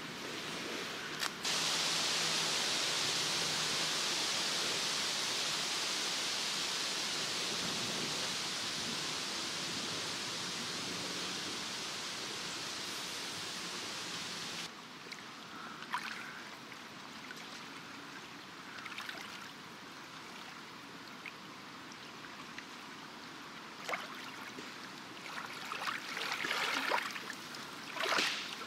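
Danube river water washing at the shore: a steady hiss that drops abruptly about halfway through, followed by quieter lapping with a few small splashes that grow more frequent near the end.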